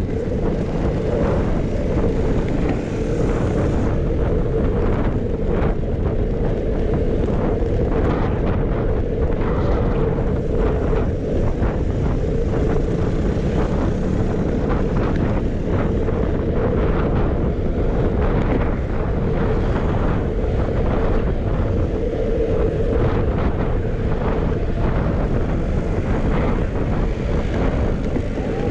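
Steady wind noise buffeting the microphone of a camera on a moving bicycle, with a low road rumble underneath.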